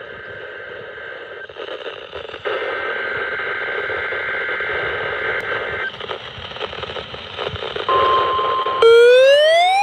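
NOAA Weather Radio broadcast through a receiver: static hiss with a faint steady whistle. About eight seconds in, the steady 1050 Hz warning alarm tone starts. About a second later a louder siren-like alarm begins, a rising sweep repeating about once a second, which is the weather alert receiver being set off by the tone.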